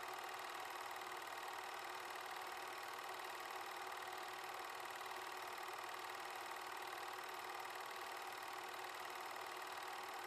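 A film projector running: a steady mechanical whirr that does not change.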